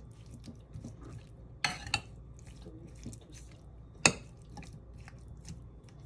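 Spoon clinking and scraping against a bowl as mayonnaise is spooned into potato salad, a scatter of small clicks with one sharp clink about four seconds in.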